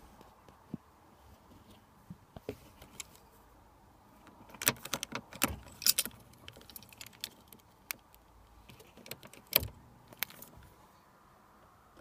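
A Renault Clio Mk2's key and fob jangling, and clicking in the ignition lock as the key is put in and turned between positions with the fob button held down to get past the immobiliser. A quick run of clicks comes in the middle, and two more come near the end.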